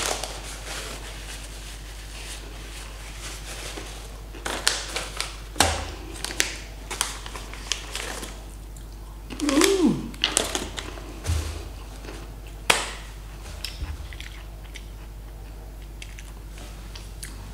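Paper snack packet crinkling as it is handled and a piece taken out, with crunchy chewing of the snack. Scattered rustles and crunches with quiet stretches between.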